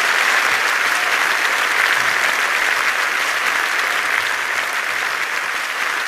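Large theatre audience applauding steadily, a dense, even clapping that welcomes a performer onto the stage.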